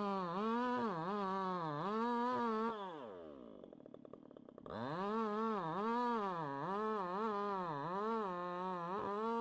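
Two-stroke chainsaw at high revs cutting wood, its pitch wavering up and down about twice a second as the chain loads in the cut. About three seconds in the throttle is let off and the engine falls toward idle, then revs back up about two seconds later and cuts again.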